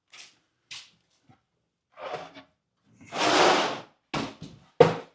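Scrap plywood pieces being handled on a bench: a few light taps, a sliding scrape lasting about a second around three seconds in, then sharp wooden knocks near the end.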